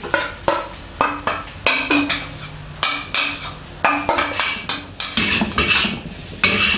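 Metal wok spatula scraping and striking a cast iron wok as cooked rice is tipped in and tossed into scrambled egg: sharp clanks about every half second, each ringing briefly, with a light sizzle underneath.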